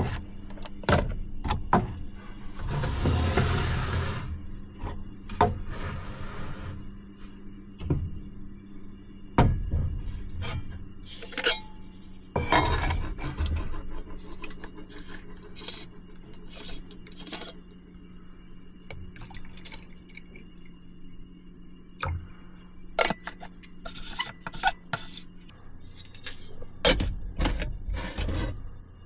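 Irregular clinks, knocks and rustles of objects being handled, over a steady low hum.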